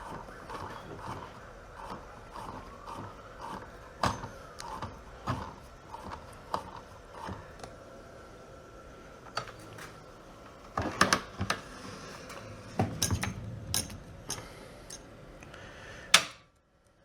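Metal hardware and tools clinking and knocking as a kayak trolling-motor mount is bolted on: scattered sharp clicks, with bursts of rattling about eleven and thirteen seconds in. It cuts off abruptly near the end.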